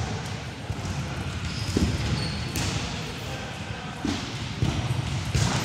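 A table tennis ball giving a few scattered sharp knocks on the table and bats, over the low murmur of a large hall.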